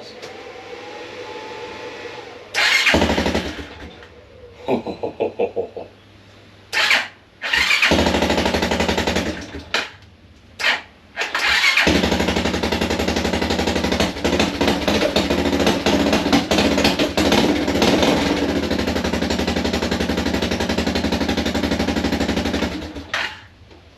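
1987 Suzuki QuadRunner 250's single-cylinder engine being started on its new pickup coil. It catches in short bursts and stumbles between them, then starts about 12 seconds in and runs steadily until it stops near the end.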